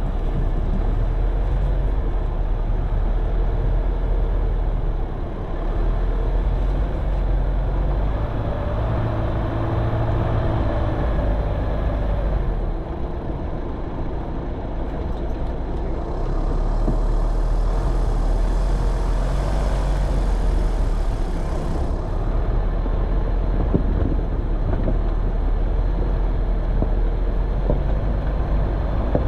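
Off-road vehicle's engine running at low speed as it drives over rough ground, with a few brief knocks along the way.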